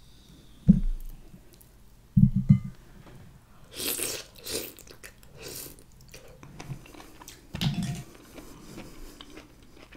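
Close-up eating sounds: a sauced mussel eaten from its shell, with wet slurping and chewing. Dull thumps of handling come about a second in, twice about two seconds in, and again near the end.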